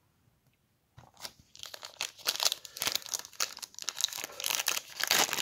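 Foil wrapper of a Panini Prizm trading card pack crinkling and tearing as it is pulled open by hand. It starts about a second in and grows louder.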